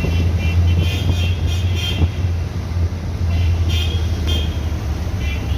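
Road traffic: a steady low rumble of vehicles, with several short, high-pitched horn toots that come and go.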